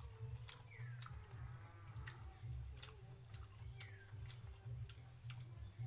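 Hands mixing and scooping watery rice in steel bowls: scattered soft clicks and taps against the metal, over a low steady hum. A short falling chirp comes about a second in and again around four seconds.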